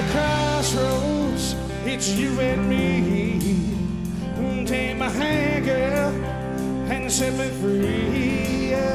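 Band playing a song: a sung lead vocal with vibrato over electric bass, guitar and drums.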